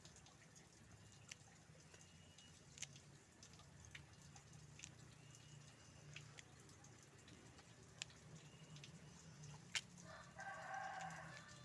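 Rooster crowing once, faintly, about ten seconds in, over a low steady hum and a few light clicks.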